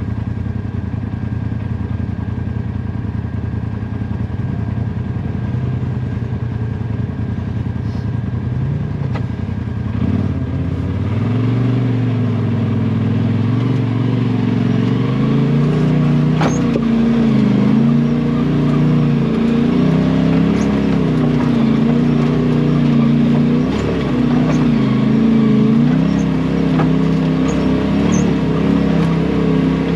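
Side-by-side UTV engine running steadily, then from about ten seconds in revving up and rising and falling in pitch over and over as the throttle is worked on the trail.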